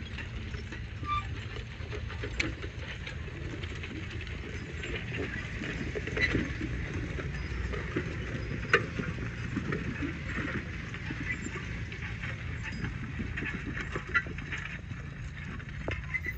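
Car driving: steady low road rumble with scattered light ticks and knocks, and one sharper knock about nine seconds in.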